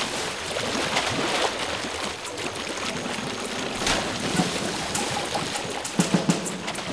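River water splashing and churning as a crowd of Nile crocodiles thrash together, with one large splash about four seconds in.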